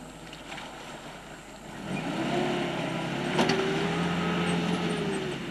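Pickup truck engine pulling hard as the truck drives through a shallow water channel, with water churned up by the wheels; the engine comes up about two seconds in, climbs a little in pitch and holds. A single sharp click about three and a half seconds in.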